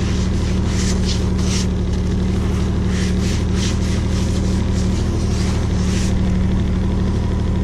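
Ski-Doo Skandic 900 ACE snowmobile's three-cylinder four-stroke engine idling steadily while stationary. Over the idle come a few soft scrubbing strokes as a gloved hand rubs snow across the wet seat.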